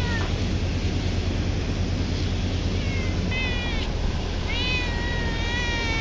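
A cat meowing repeatedly: a short call at the start, a fainter one, then a rising-and-falling call and a longer drawn-out one near the end. A steady low hum runs underneath.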